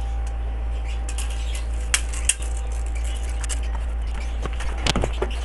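A plastic tarpaulin sheet rustling as it is spread out, with a few sharp clicks from a metal tape measure being handled, over a steady low hum.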